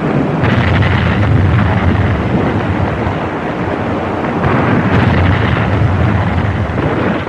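A loud, continuous rumble with a rushing hiss over it. It starts abruptly and swells about a second in and again around five seconds in.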